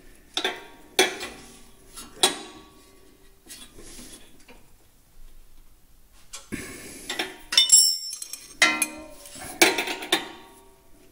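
Steel combination wrench clinking against the locking nut on a riding mower's deck-leveling rod as the nut is tightened: a few sharp clinks at first, then a quiet stretch. Past the middle a cluster of clinks with one ringing clink as the wrench is set down on the concrete floor, followed by more light clinks.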